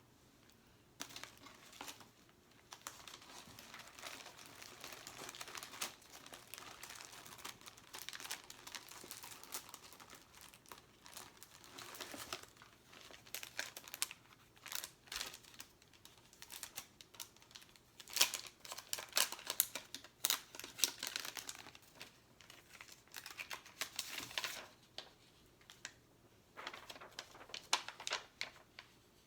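Sticker sheets crinkling as stickers are peeled off and pressed onto a box, with sharp crackles and taps. The crinkling is steady for the first half, then comes in louder, sharper bursts, with a short pause near the end.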